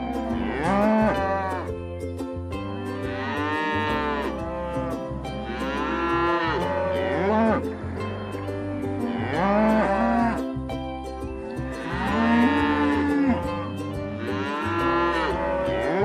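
Cattle mooing: a string of long moos, about one every second or two, some overlapping, each rising and then falling in pitch.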